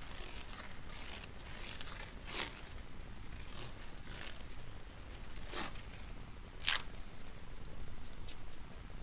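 Elastic adhesive tape peeling off its roll in several short rasping pulls as it is wrapped around a bare foot, with hands rubbing it down between pulls.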